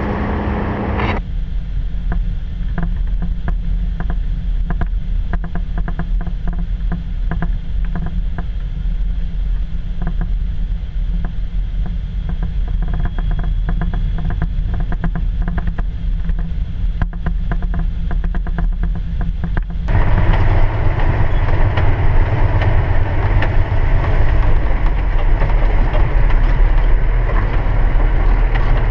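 Harvest machinery's engine running steadily with a low rumble. About twenty seconds in it suddenly grows louder and fuller.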